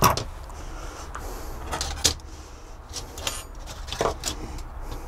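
Handling clicks and knocks of G-gauge track parts: brass rails, a metal rail joiner with its power-feed wire, and a screwdriver knocking against a wooden workbench. There is a sharp knock at the start and another about two seconds in, then a quick run of ticks a little after three seconds, all over a low steady hum.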